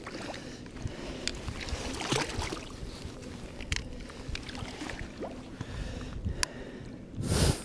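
Lake water splashing and sloshing at a rocky shoreline, with scattered clicks and knocks of handling close to the microphone and a short loud rushing burst near the end.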